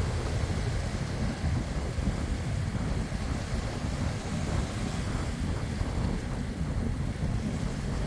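Small waves lapping and washing over a rocky, sandy shoreline, with wind on the microphone adding a steady low rumble.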